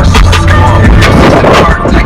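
Loud background music with heavy bass and a steady drum beat.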